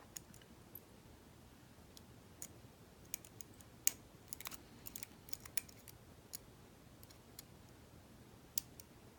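Lock pick and tension wrench working the three pins of a US Mail registered padlock: faint, irregular small metal clicks, some two dozen scattered through, as the pins are probed and set.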